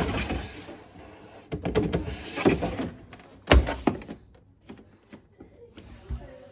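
Knocks, clatter and a loud thump from a washing machine being handled, with its door or drum being moved.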